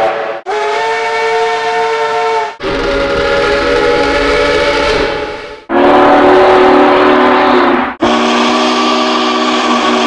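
Steam locomotive whistles: four long blasts, each a chord of several steady notes sounded together, with abrupt cuts between them. The third blast is the loudest.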